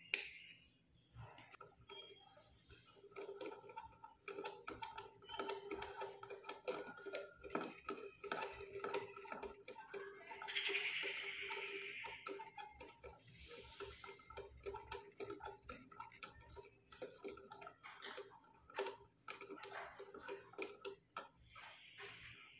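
A sharp snip near the start, then many irregular clicks and light rattling as a small hand-cranked winch on a homemade model borewell rig is turned, its bent-wire crank shaft clicking in its brackets as cotton string winds onto the spool.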